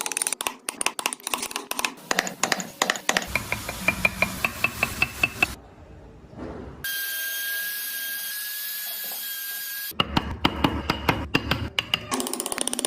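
Woodworking tool sounds on wood in quick succession: dense knocks and taps, then a few evenly spaced ringing taps, about three seconds of a steady power-tool whine in the middle, more knocking, and rubbing near the end.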